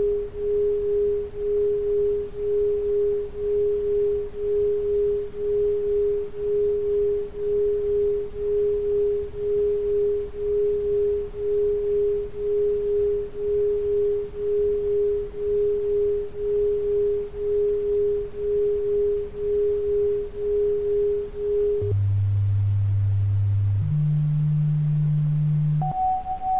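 An electronically generated pure sine tone, a little above 400 Hz, pulsing about twice a second. Near the end it gives way to two low steady tones of about two seconds each, the second a little higher than the first, and then a higher tone begins.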